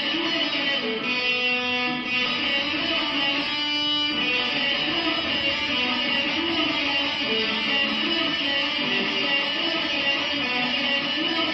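Sunburst single-cut electric guitar playing a tune.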